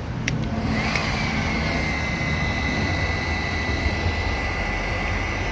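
Heat gun running with a steady blowing rush and a high, steady whine, after a couple of clicks near the start.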